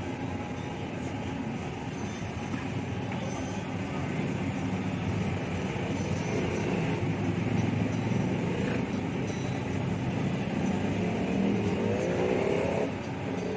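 Steady rumble of passing road traffic, cars and motorcycles, growing louder through the middle and dropping off shortly before the end.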